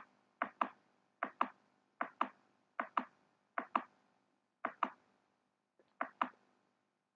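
A computer mouse button clicked about seven times, roughly once a second. Each click is a quick double tick of press and release, stepping a GUI slider up one notch at a time.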